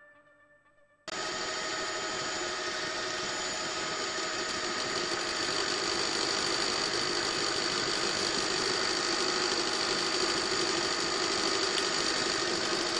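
News helicopter's engine and rotor noise: a steady drone with a high, fixed whine, cutting in abruptly about a second in after near silence.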